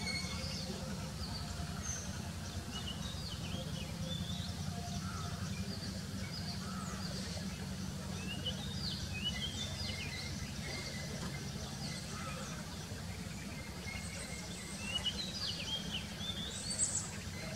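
Oriental magpie-robin giving short whistled notes and chirps, scattered and thicker and louder in the last few seconds, over a steady low hum.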